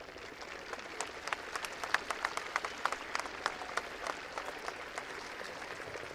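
Audience applauding: dense clapping that swells about a second in and thins out after about four seconds.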